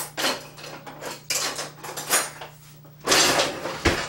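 Metal kitchen utensils clattering and clinking as a utensil drawer is rummaged through for a stirring spoon, in irregular clanks with a louder rattle a little after three seconds in.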